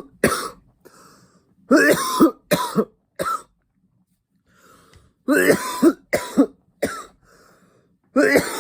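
A man coughing hard in fits after a long hit from a cannabis vape pen: several groups of harsh coughs, each of a few quick coughs, with faint breaths between.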